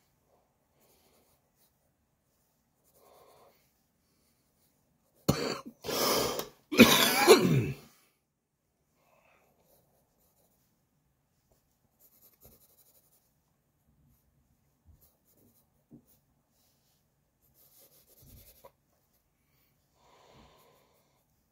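A person coughing: three harsh coughs in quick succession about five seconds in, the last the longest. Otherwise only faint pencil strokes on sketch paper and breathing.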